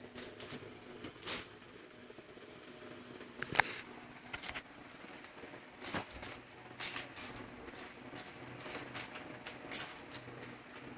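Irregular sharp clicks and taps, about a dozen scattered unevenly, the sharpest about three and a half seconds in, over a faint steady hum in a small room.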